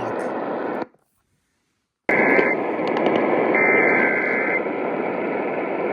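Radio receiver static, a steady hiss between alert broadcasts. It cuts out completely for about a second shortly after the start, then comes back with two short steady higher-pitched tones.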